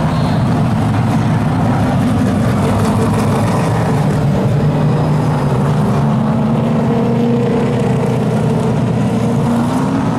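A field of late model stock cars' V8 engines running together at a steady, moderate pace as the pack circles under caution, with individual engine notes drifting up and down in pitch in the second half.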